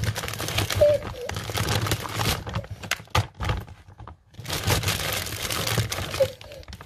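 Rustling and crinkling handling noise, in two long stretches with a quieter gap of about a second and a half in the middle.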